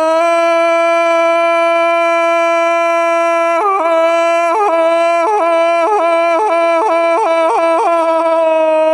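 A single wind instrument with a bright, reedy tone holds one long, loud note. From about three and a half seconds in, the note is ornamented with a run of quick dips in pitch that each spring back.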